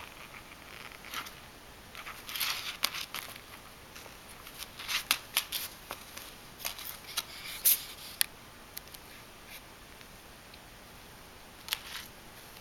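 A paper plate scraping and crackling under a kitten's paws and claws as it pounces on and bats at it: irregular scratchy clicks in clusters, busiest in the middle, with one last sharp click near the end.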